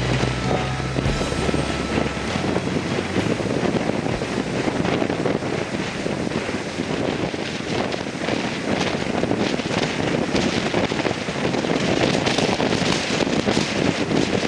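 Wind buffeting the microphone over the rush of waves and water.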